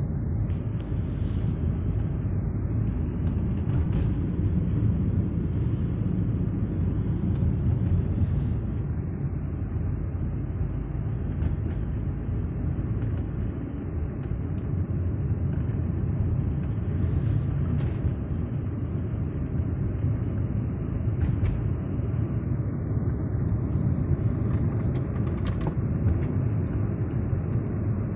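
Steady low rumble of engine and tyre noise inside the cabin of a moving car, with a few faint clicks and rattles here and there.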